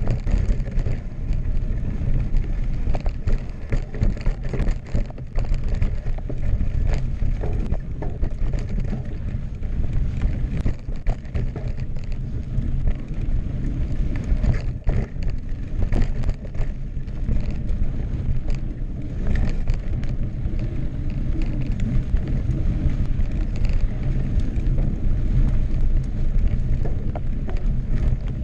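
A 2016 Specialized Enduro Expert Carbon mountain bike rolling fast down rocky dirt singletrack: its tubeless tyres rumble and crunch over the trail, with frequent knocks and rattles as it hits rocks and roots. Wind buffets the action-camera microphone throughout.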